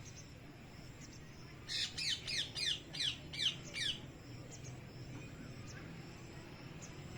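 A parrot giving a quick run of about eight loud, shrill calls, each falling in pitch, starting about two seconds in and lasting about two seconds.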